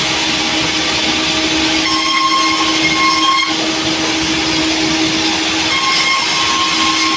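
Sawmill running and sawing a log: a steady machine drone with a higher whine that comes and goes.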